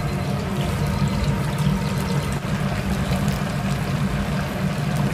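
Chicken deep-frying in a vat of hot oil, the oil bubbling and sizzling steadily over a constant low hum.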